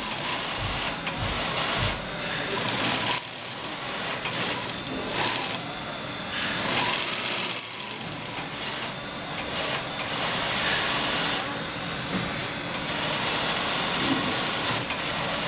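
Industrial sewing machine stitching a fabric boot piece, running in spells with its loudness rising and falling.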